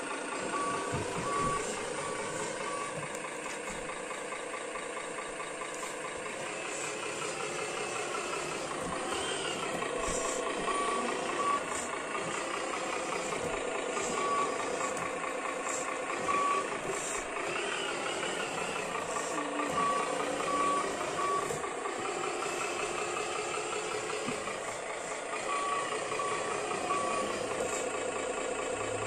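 Electronic sound module in a miniature RC truck playing a truck engine sound that rises and falls as if revving, with short runs of reversing beeps every few seconds.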